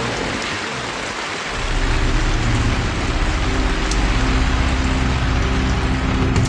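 A steady rushing hiss, with a motor starting a steady low hum about a second and a half in.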